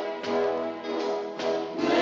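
Orchestral music: a series of held chords that change roughly every half second.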